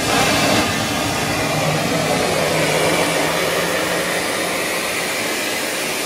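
Pressurised steam jetting from the open outlet valve of an electric steam boiler: a loud, steady hiss.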